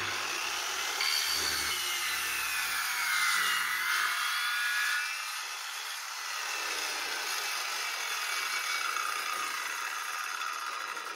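Stanley 1510 W circular saw running and plunge-cutting down into a plywood board. Its whine dips in pitch under the load about three to four seconds in, then recovers and steadies.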